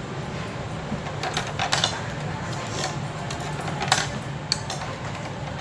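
Eating utensils clicking and tapping against dishes: several light clicks, the loudest about four seconds in, over a steady low hum.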